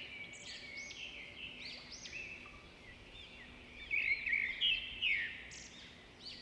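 Birdsong of many quick, arching chirps and trills, played back through a smartphone's small loudspeaker.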